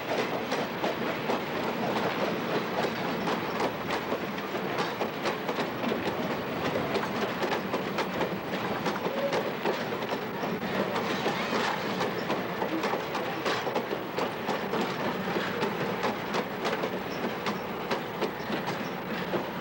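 Vintage passenger cars rolling past on the track, their wheels clicking steadily over the rail joints in a continuous clickety-clack with running rumble.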